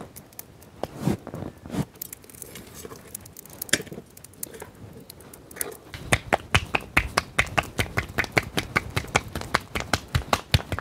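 Roti dough being patted by hand, slapped back and forth between the palms: a quick, even run of sharp slaps, about four or five a second, starting about six seconds in. Before that, only a few scattered light taps and scrapes.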